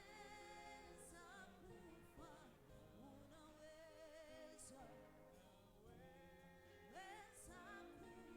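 Faint music with singing: a voice holding long, wavering notes over an accompaniment.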